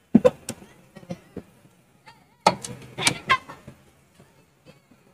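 Sharp plastic clicks and knocks as a DC adapter's barrel plug is pushed into the power socket of an SF-400A digital kitchen scale and the scale's plastic body is handled: a few right at the start, then a cluster about two and a half seconds in.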